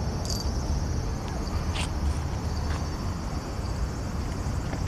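Outdoor ambience: a steady low rumble with a steady high buzz over it, and a couple of brief high chirps, one near the start and one about two seconds in.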